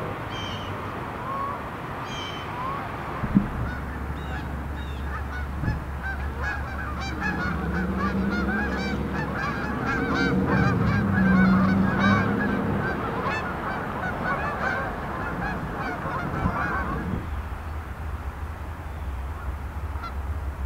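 A flock of geese honking as they fly in to land on water, many overlapping calls that build to a dense chorus in the middle and die away a few seconds before the end. A low steady rumble lies underneath from about three seconds in.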